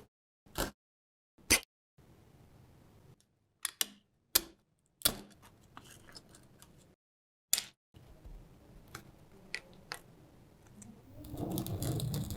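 A series of sharp single clicks and taps of small hand tools and parts on a diecast model car, spaced a second or so apart, with fainter ticks between. Near the end a louder, steadier scraping, rattling noise begins.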